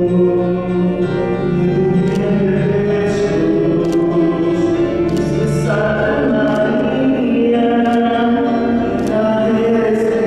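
Choral music: voices singing long held chords that change every few seconds.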